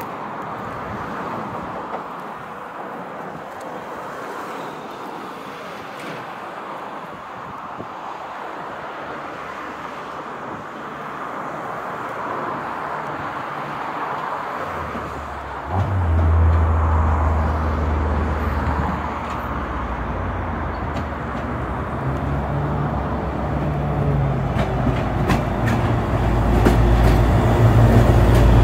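Diesel locomotive approaching and passing close beneath. A steady rushing noise gives way, about halfway through, to the engine's low hum, which comes in suddenly and grows louder as the locomotive draws near.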